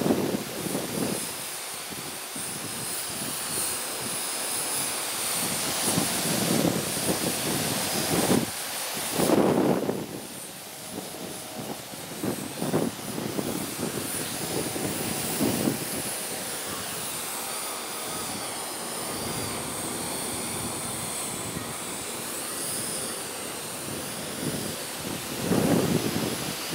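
Parrot AR.Drone 2.0 quadcopter's rotors whining high and steady, the pitch wavering up and down as it holds against strong wind. Gusts of wind buffet the microphone every few seconds as low rumbles.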